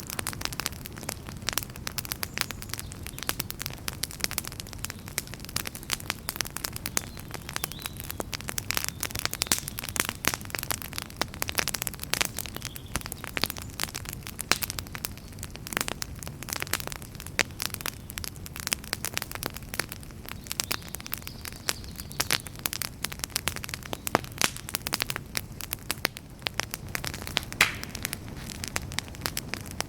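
Wood campfire crackling, with dense, irregular sharp pops and snaps over a low steady rumble.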